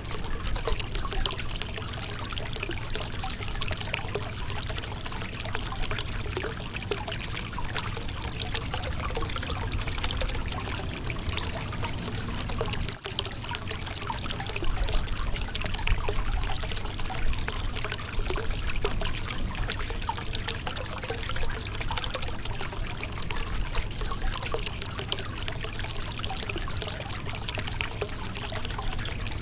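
Shallow river water running over a rocky bed: a continuous babbling trickle and splash, with a momentary dip about halfway through.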